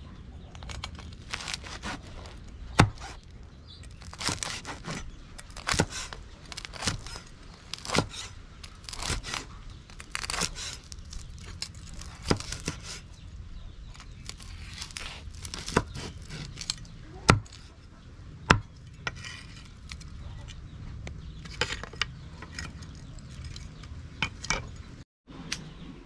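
Cleaver chopping fried pork belly on a thick wooden chopping block: irregular sharp chops about once a second, with the crunch and crackle of the crisp skin as it is cut.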